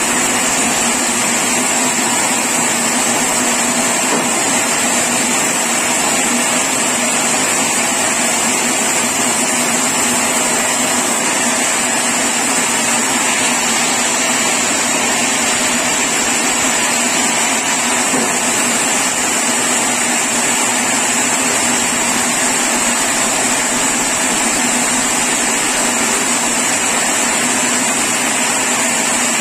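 Sawmill saw running steadily, with a continuous high whine over a machine drone.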